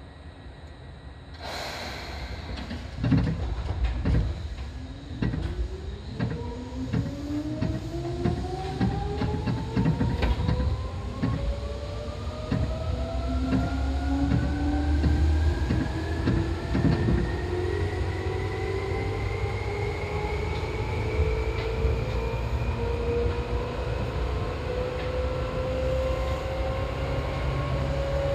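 Seibu old 2000 series electric train pulling away and accelerating. A short hiss comes about a second and a half in, then the traction motors' whine rises steadily in pitch over some twenty seconds, while the wheels clatter over rail joints in the first half.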